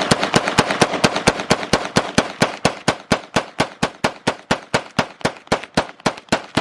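Several firearms fired rapidly together in a mag dump, a steady string of about five shots a second, with overlapping reports early on that thin to one shot at a time toward the end.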